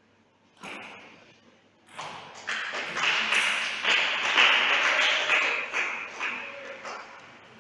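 A table tennis ball is struck once about half a second in. From about two seconds in, spectators clap for the point just won; the clapping builds, then dies away.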